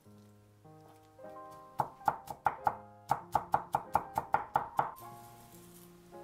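Kitchen knife chopping garlic on a wooden cutting board: a quick run of about fourteen strokes, around four a second, starting about two seconds in and stopping near five seconds, over light background music.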